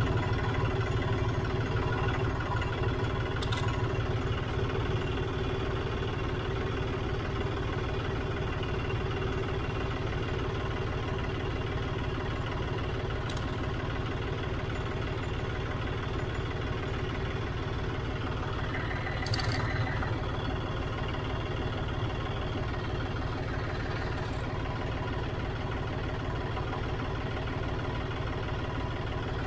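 John Deere 5039D tractor's three-cylinder diesel engine idling steadily, with a few light clicks over it, one a little louder about two-thirds of the way through.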